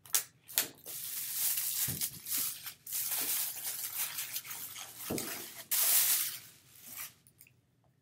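Thin plastic bag crinkling and rustling as a cardboard box is pulled out of it, with sharp crackles throughout. The crinkling is loudest a little before the end and dies away near the end.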